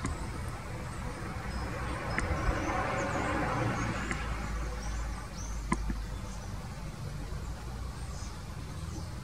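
Outdoor background sound: a passing vehicle that swells and fades between about two and five seconds in, over a low rumble. Faint, high bird chirps are scattered throughout, and there are two sharp clicks.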